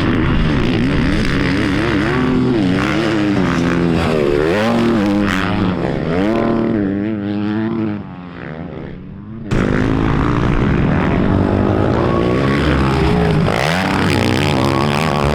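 Dirt bike engines revving up and down through the gears, the pitch rising and falling every second or so. The sound drops back about eight seconds in, then cuts in again suddenly a second and a half later.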